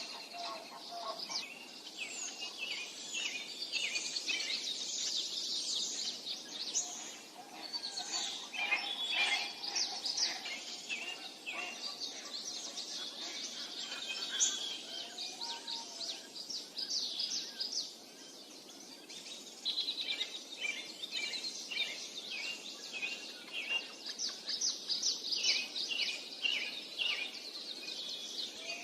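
A dense chorus of many small birds chirping and singing, with rapid overlapping high chirps and trills and a few lower whistled notes.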